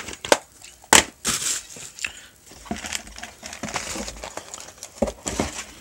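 Plastic DVD cases being handled: a few sharp clicks and knocks among irregular crinkling and rustling.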